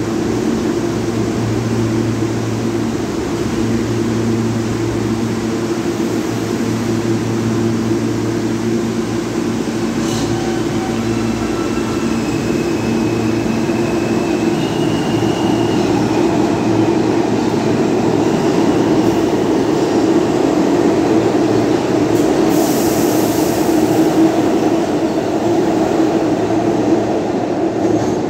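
New York City Subway R160B train running through an underground station: a steady rumble of steel wheels on rail under a low electric motor hum, with a short high-pitched whine partway through. The rumble grows louder in the second half.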